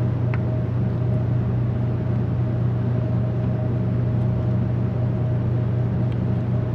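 Steady low hum that does not change, with a faint higher tone over it and a single faint click about a third of a second in.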